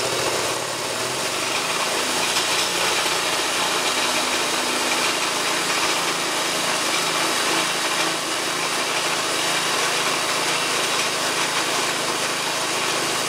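Small single-cylinder petrol engine running steadily, belt-driving a Ford car air-conditioning compressor.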